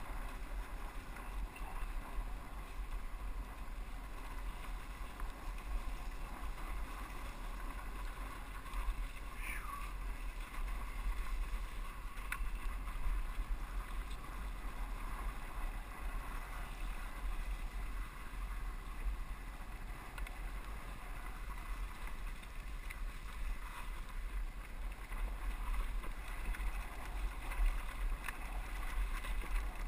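A 2001 KTM 200EXC two-stroke single-cylinder dirt bike engine running steadily while riding along a dirt trail. Wind buffets the microphone underneath it as a low rumble.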